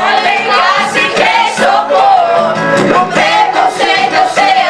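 A group of people singing together loudly over music.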